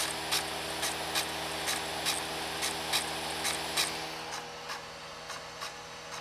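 Laptop CD-ROM drive spinning with a steady whirr during an operating-system install, which dies away about four seconds in. Throughout, drive seek clicks come at about two a second.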